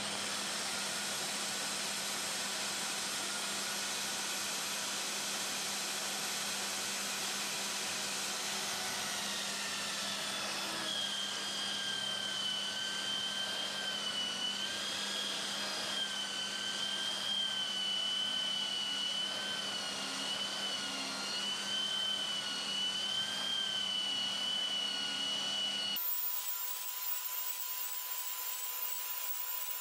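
Handheld router with a chamfer bit running along the edge of an oak rafter, its dust-extraction vacuum running with it: a steady motor hum, then a high whine from about a third of the way in that wavers in pitch as the cut loads the motor. Near the end the low hum stops abruptly.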